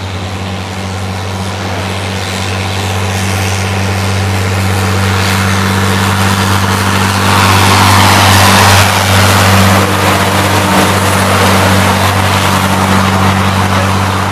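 Heavy military vehicle's engine running with a steady low drone, growing louder to a peak about eight seconds in and then easing slightly.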